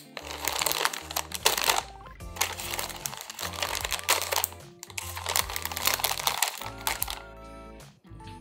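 Clear plastic fruit packaging crinkling as grapes are pulled off the bunch by hand, in three stretches of rustling over background music, which carries on alone near the end.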